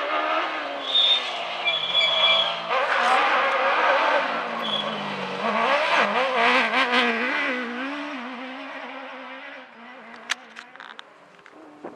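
Off-road rally buggy's engine revving hard and changing pitch as it races past, with brief high squeals about a second in. The engine fades as the buggy moves away, and a few sharp ticks come near the end.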